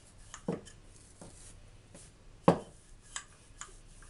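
Wooden rolling pin rolling out soft dough on a countertop: a faint rolling rub with a few short knocks, the loudest about two and a half seconds in.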